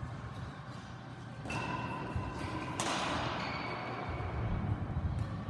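Badminton play on an indoor court: a sharp racket strike on the shuttlecock about three seconds in, over dull thuds of players' feet on the court floor.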